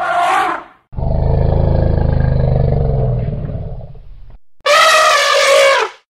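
Elephant calls: a short trumpet at the start, then a low pulsing rumble lasting about three seconds, then a loud, slightly falling trumpet blast of about a second and a half near the end.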